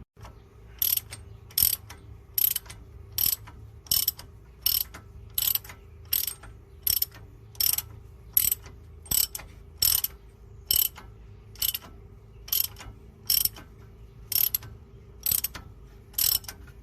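Hand ratchet wrench clicking in short, even bursts, about four every three seconds, each one the backswing of a stroke as a bolt is run down.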